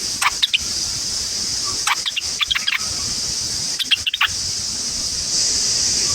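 A bird giving three short bursts of quick, chattering high calls, about two seconds apart, over a steady high-pitched insect drone.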